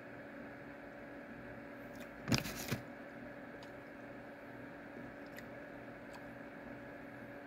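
A brief crinkle and knock as the opened chocolate bar in its wrapper is handled and set down, about two and a half seconds in. A steady low electrical hum runs underneath.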